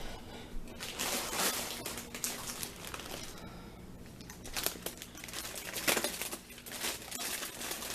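Plastic food packaging crinkling and rustling as items are handled and moved about in a pantry, in irregular spells, loudest about six seconds in.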